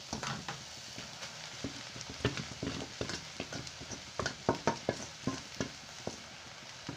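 Cooked rice being tipped from a perforated steel colander into a pan of frying vegetables, with a wooden spatula and the colander tapping and clacking irregularly against the pan. The taps are loudest and thickest about four to five and a half seconds in, over a low sizzle of frying.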